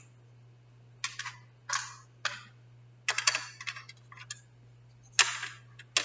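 Wooden craft sticks clicking and clattering against each other and a plastic holder as a hand sorts through them, in a string of short, sharp clicks, with a steady low hum underneath.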